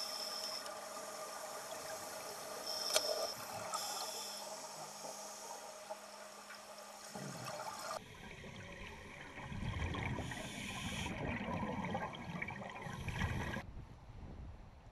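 Underwater bubbling and gurgling from scuba divers' exhaled air, growing into a louder low rumbling about halfway through. Near the end it gives way to wind and waves on a lakeshore.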